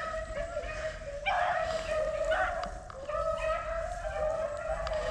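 Beagles baying on the trail of a freshly jumped rabbit: long, held, pitched cries that run on with little break, a louder burst of cries at about one second in and again a second later.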